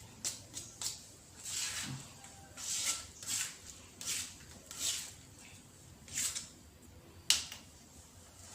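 Kitchen prep handling noises: several short scraping or rustling strokes, less than a second apart, mixed with small clicks, and one sharp knock about seven seconds in.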